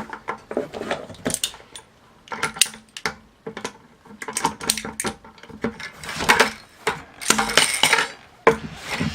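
Pliers gripping and prying the end of a 5-gallon bucket's steel wire handle out of its plastic ear: irregular metal clicks, scrapes and clinks, with the loudest ones past the middle.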